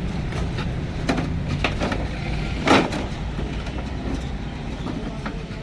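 A motor vehicle running with a steady low rumble, with scattered clicks and knocks and one louder knock about halfway through.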